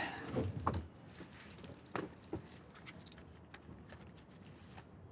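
Soft rustling with a few small clicks and taps from hands working a small object. The loudest rustle comes in the first second.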